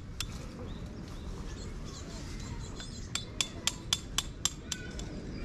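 Tent peg being hammered in: a single metallic strike, then a quick run of strikes near the end, about four a second, each with a short ringing note.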